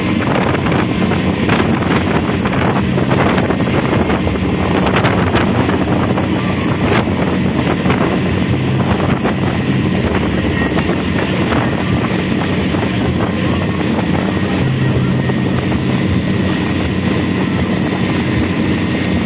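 Motorized outrigger boat (bangka) under way: its engine running steadily, with wind buffeting the microphone and the hiss of water spraying off the outrigger floats.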